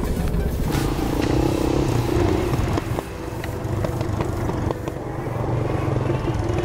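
Beta Alp dual-sport motorcycle engine running at low trail speed, heard from on the bike, with a short dip in level about three seconds in.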